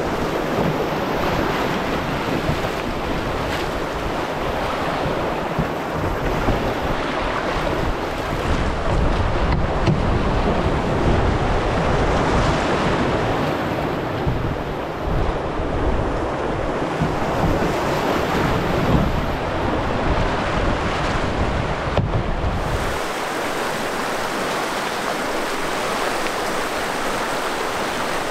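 Whitewater rapids rushing loudly around a canoe as it runs through them, with wind buffeting the microphone. About three-quarters of the way through, the low wind rumble drops away and the steady rush of the rapids goes on.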